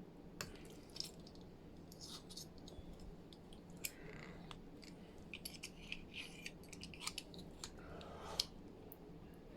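A metal fork's tines scraping and clicking against a hard plastic clothing security tag as it is pried at the tag's pin lock. The clicks are small and irregular, more frequent in the second half.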